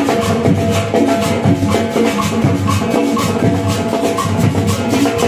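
Marching band playing, with drums and percussion beating a steady rhythm under the melody.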